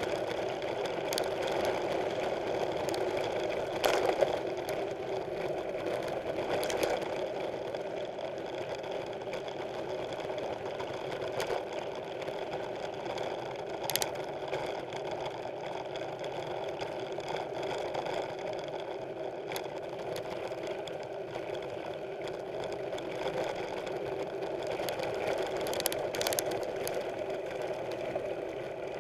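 Mountain bike riding over a dirt trail: a steady mechanical buzz with occasional sharp knocks and rattles from the bike.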